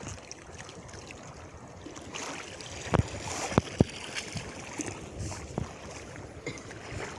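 Wind on the microphone over lapping shallow water, with a person's feet splashing as they wade out onto the sand, and a few sharp thumps about three to four seconds in.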